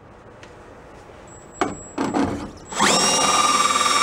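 A few knocks of handling, then about three-quarters of the way in a handheld electric drill fitted with a step bit spins up with a short rising whine and runs steadily.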